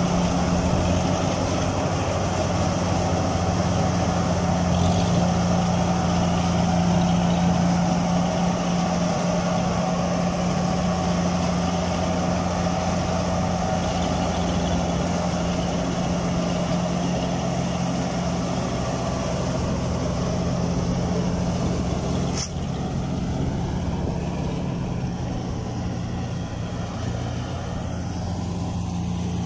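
Kubota combine harvester's diesel engine running steadily under load as the tracked machine works its way through deep paddy mud. There is a short click about three-quarters of the way through, after which the engine sounds a little quieter.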